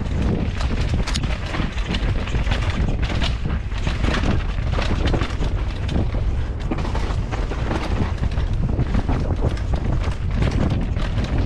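Wind buffeting a GoPro's microphone during a fast mountain-bike descent, a continuous heavy rumble, with tyres running over loose dirt and the bike clattering over roots and bumps in many quick knocks.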